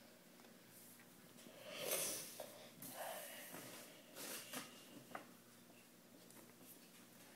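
Faint handling noise from a phone held close to the microphone while it is being tapped: a few soft rustling swells, the loudest about two seconds in, and a few sharp little clicks.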